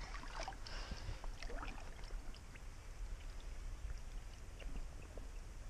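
Faint sloshing and trickling of shallow creek water, with scattered small ticks and light splashes and a low rumble underneath.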